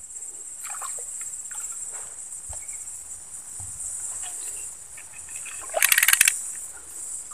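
Steady high-pitched chirring of insects, with a hooked baung catfish splashing at the water's surface; a short, louder splashing burst comes about six seconds in.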